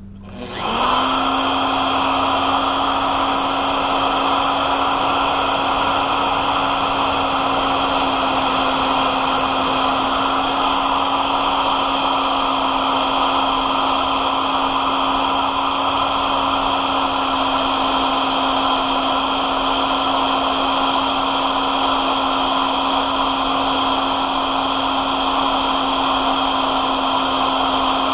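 A drill's motor starts up and runs at a steady whine as a Walter split-point HSS twist bit bores dry into a hardened tool-steel wrench, with no lubricant.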